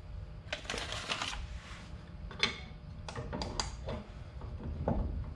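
Metal parts being handled and fitted by hand: irregular clicks, taps and scrapes as a CalTracs traction-bar bracket is worked onto a leaf spring, with a sharp click about two and a half seconds in.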